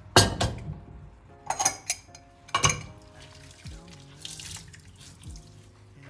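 Dishes being washed by hand in a soapy stainless steel sink: water sloshing and splashing, with a few sharp splashes and knocks of a glass dish, near the start and again about one and a half and two and a half seconds in.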